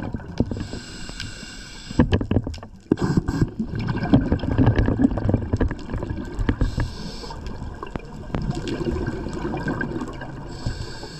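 Scuba regulator breathing underwater: a hissing inhale through the second stage, then a long rush of exhaust bubbles gurgling past the housing. The cycle repeats, and a third inhale begins near the end.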